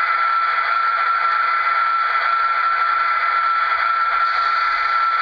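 LokSound sound decoder in an HO-scale EMD F40PH model playing its dynamic brake effect through a small speaker. It gives a steady, loud rushing of the brake grid blowers with one constant high whine on top.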